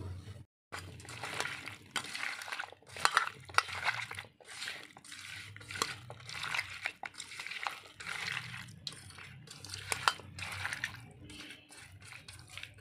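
A bare hand mixing pieces of kuchia eel fish with potatoes, spice pastes and mustard oil in a steel bowl: irregular wet squelching with sharp clinks against the steel.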